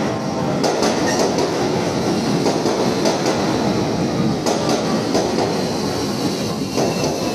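Seibu 40000-series electric commuter train rolling into the station as it arrives: a steady rumble of wheels on rail, with irregular clicks as the wheels cross rail joints and points.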